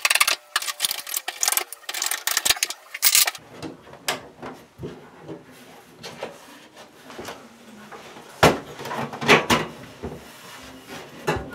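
Slide-on metal covers being pulled off the bulb sockets of a bar light fixture: a quick run of clicks and metal scrapes, then softer rubbing and handling. Louder knocks and rubbing come about two-thirds of the way through.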